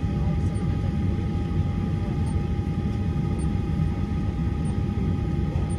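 Boeing 737-800 cabin noise while taxiing: a steady low rumble from the CFM56 engines at idle and the air system, with a faint steady whine on top.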